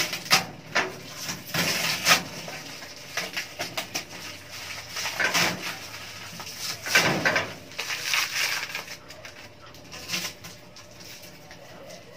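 Stainless steel parts of a gas pizza oven clinking and knocking as they are handled and fitted together, in irregular knocks with a couple of longer scraping rattles around the middle.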